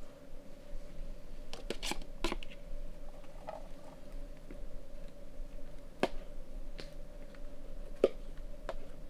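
Small campfire crackling, with about half a dozen sharp pops scattered through.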